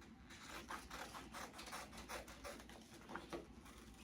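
Scissors cutting paper, faint short snips following one another a few times a second.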